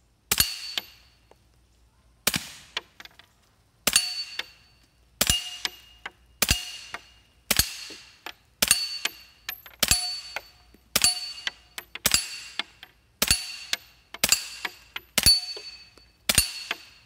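Suppressed 9mm TNW Aero Survival Rifle firing steady single shots, about fourteen, roughly one every second or so. Each report is followed by the brief ringing ding of the bullet striking a steel target.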